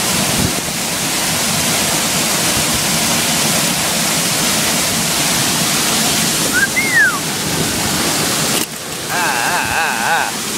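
Steady rushing of a creek cascade pouring over rock into a pool. About two seconds before the end, the rush drops away and a short wavering pitched sound is heard.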